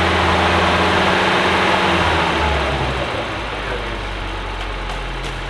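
Holden Gemini's small four-cylinder engine running fast after being started, then stepping down to a lower, steady idle about halfway through as it warms up.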